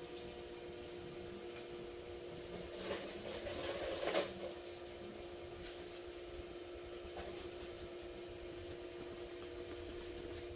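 Steady mechanical hum of a large car repair shop, with a faint knock about four seconds in and another about six seconds in.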